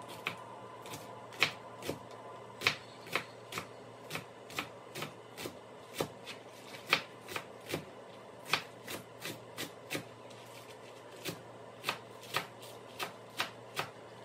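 Kitchen knife slicing green onions on a white plastic cutting board: quick, repeated taps of the blade striking the board, about two a second at an uneven pace.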